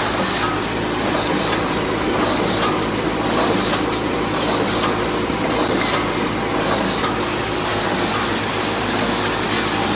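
Chicken-cage wire mesh welding machine running: a loud, steady mechanical clatter over a low hum, with a sharper, brighter stroke about once a second as the machine cycles.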